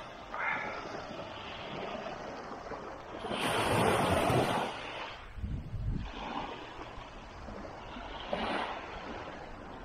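Small waves breaking and washing up a sandy beach, surging loudest about three to four seconds in and again, more softly, near the end, with some wind rumbling on the microphone.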